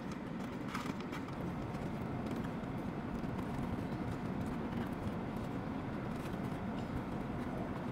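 Steady low rumble inside a car, with light rustling of a paper food box, a few soft clicks about a second in.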